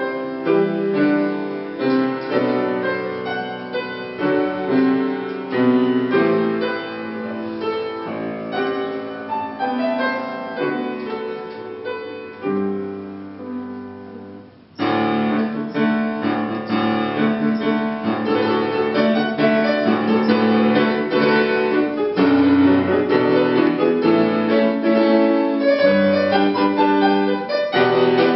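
Grand piano played solo, chords and melody ringing on. About halfway the playing dies down, then comes back suddenly and louder.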